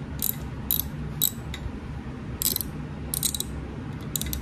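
Socket ratchet clicking in short runs as the handle is swung back for each stroke, several times. It is turning the speed sensor's retaining bolt out a little at a time through a swivel extension.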